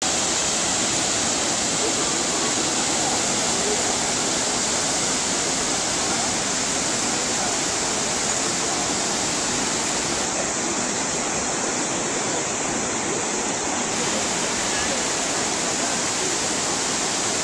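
Multnomah Falls' water pouring down the cliff into its pool: a steady, unbroken rushing roar with no change in level.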